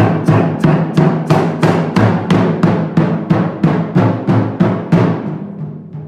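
Japanese taiko drums struck in a steady, fast even rhythm, about three to four strokes a second, each stroke ringing out; the strokes stop shortly before the end.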